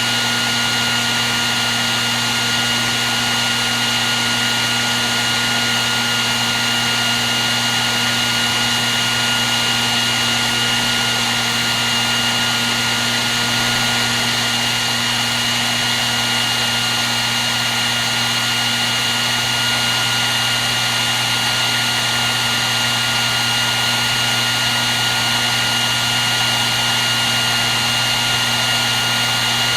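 Hair dryer running continuously: a steady airflow hiss with a constant motor whine and two high steady tones, unchanging throughout.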